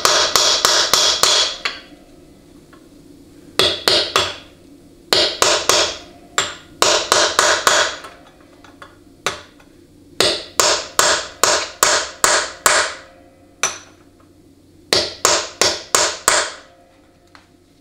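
Hammer striking a rounded-off chisel to tap a governor cover down into a 700R4 automatic transmission case, working around the cover's edge where it still sits with a small gap. Quick runs of sharp metallic taps, about four a second, come in several bursts with short pauses between them.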